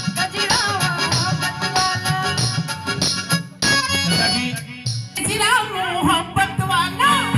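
Indian folk song music: a wavering melodic lead over a steady drum beat.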